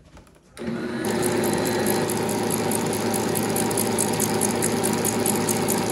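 Bosch stand mixer starting up about half a second in and then running steadily at speed, its whisk attachment whipping baked sweet potatoes into a puree. A fast regular pulse, about five a second, rides on the motor.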